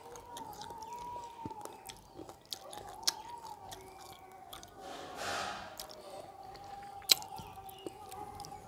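Close-up chewing and lip-smacking while rice and curry are eaten by hand, with many short sharp mouth clicks. A short breathy rush comes about five seconds in and one loud sharp click about seven seconds in.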